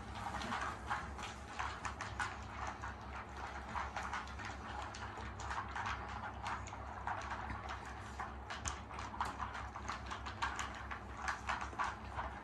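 Shih Tzu puppies gnawing on chew treats: a continuous run of quick, irregular clicks and chomps.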